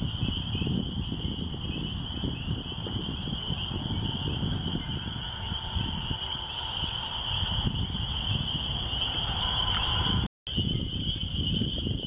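A chorus of spring peepers, a continuous high peeping, over a low rumble of wind on the microphone. The sound cuts out for a split second about ten seconds in.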